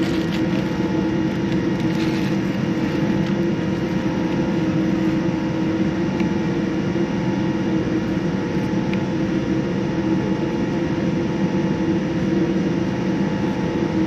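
Steady cabin noise inside a Boeing 787-9 with its engines at low power: an even rush of air with a constant low hum and a few steady tones, neither rising nor falling.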